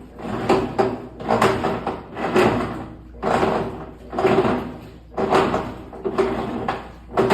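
Electrolux LTE12 top-load washing machine agitating with an abnormal noise that comes with each stroke of the agitator, about once a second. The noise happens only in agitation; the machine spins quietly.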